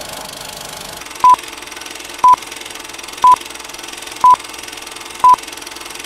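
Film-leader countdown sound effect: a short, high single-pitch beep once a second, five times, over a steady hiss of old-film noise.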